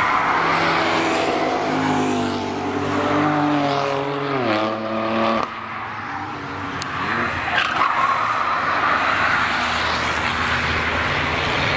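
Cars passing at speed on a race circuit. A performance car's engine note falls in pitch as it goes by and stops abruptly about five and a half seconds in. Another car's engine and tyre noise follows.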